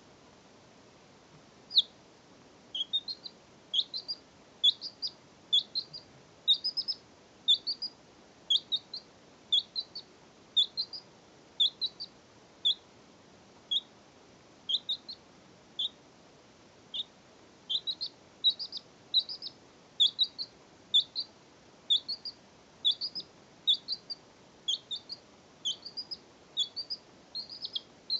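Baby chick peeping: a steady string of short, high peeps that drop quickly in pitch, often in pairs or threes, about one to two a second.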